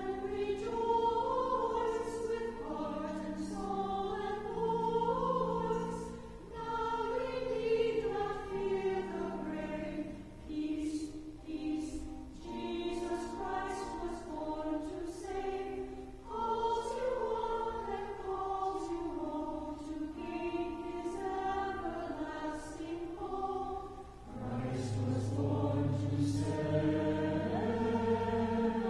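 Choir singing a slow piece in several-part harmony, with the sustained notes of the voice parts moving together. Low notes come in strongly about 24 seconds in.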